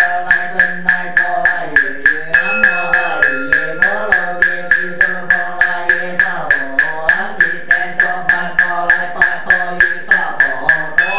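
Buddhist sutra chanting, a voice intoning slowly over a wooden fish (muyu) struck steadily about four times a second. A small Buddhist hand bell (yinqing) rings about two seconds in and again near the end.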